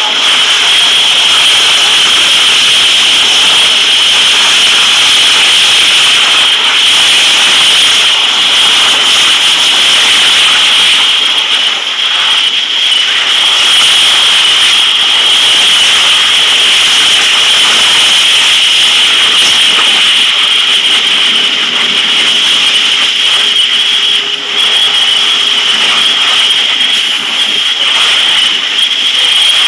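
A large propane fire from a tank prop burning with a steady, loud rush, mixed with the spray of fire hose streams playing on it.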